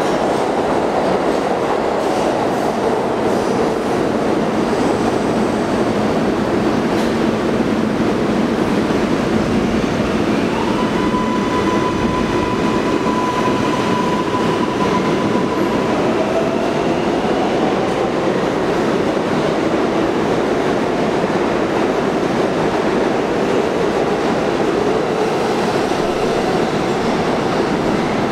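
R142A New York City subway train pulling out of the station and running away along the platform at a steady loud level. About halfway through a thin steady whine is heard for several seconds, followed by a short rising tone as the train speeds up.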